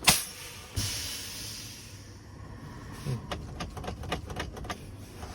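Air-ride suspension on a 2021 East flatbed trailer being dumped: a sharp click, then about a second in a rush of escaping air that fades over about two seconds as the airbags deflate. Scattered light clicks and taps follow.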